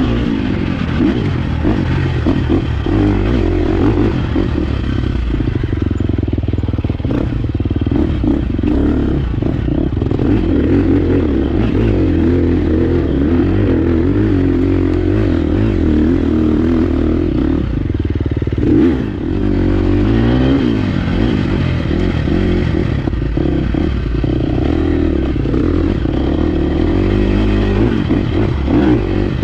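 2023 Husqvarna 350 FX's single-cylinder four-stroke engine running under load as the dirt bike is ridden over a rough trail, its revs rising and falling with the throttle. About nineteen seconds in it briefly drops off, then revs back up.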